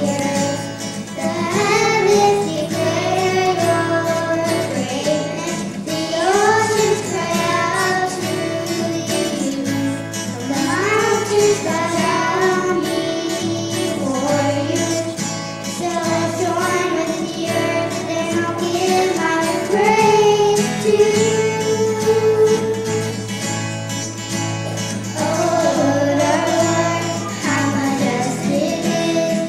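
Two children singing a song together, accompanied by an acoustic guitar.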